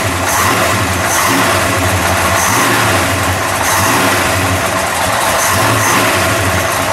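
Chrysler 440 big-block V8, stroked to 496 cubic inches and fed by three Stromberg 97 carburetors, running steadily.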